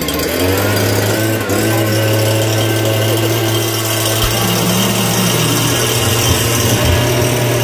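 Small electric motor on a homemade turbocharger gas turbine rig running steadily with a low hum.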